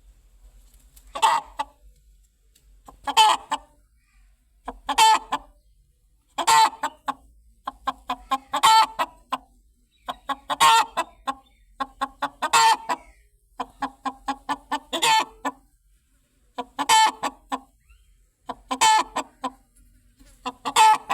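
Chicken clucking: a loud call about every two seconds, with runs of quick, short clucks in between.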